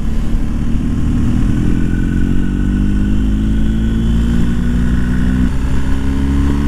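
BMW R1250 GS boxer twin with an Akrapovic exhaust, heard from the rider's seat while pulling along under power. The engine note climbs slowly, drops once about five and a half seconds in, then climbs again.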